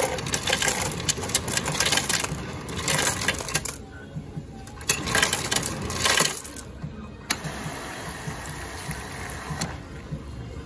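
Ice cubes clatter from a Cornelius soda fountain's ice dispenser into a paper cup in two rattling bursts, one over the first few seconds and a shorter one about five seconds in. Then cola runs from the nozzle into the cup with a steady fizzing hiss from about seven seconds in.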